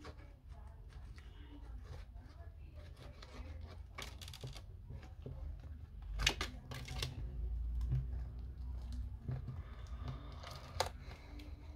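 Handling and tool noise while taking apart an Apple Time Capsule: scattered clicks and scraping, with a few sharper snaps about a third, half and nine-tenths of the way through.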